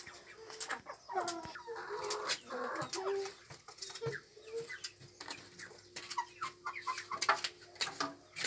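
Domestic chickens clucking in short repeated calls while feeding at a trough, mixed with many sharp clicks.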